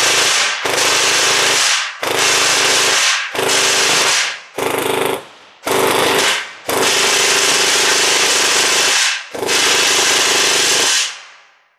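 Upgraded Sirius gel blaster, rebuilt with a Singularity Gen 8 gearbox, SHS 16:1 gears, an M120 spring and a Warhead 480 motor for about 30 rounds a second, firing on full auto. It fires eight rapid bursts, most about a second long and the last two about two and a half and one and a half seconds, with the motor-driven gearbox cycling steadily through each.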